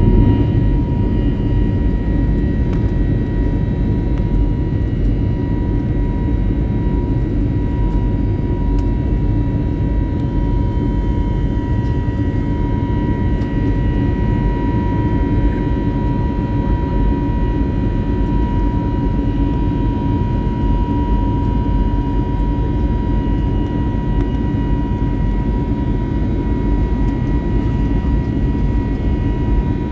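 Steady jet-engine roar of an Airbus A320 in its climb after takeoff, heard inside the cabin beside the engine, with a steady whine riding above the low rumble.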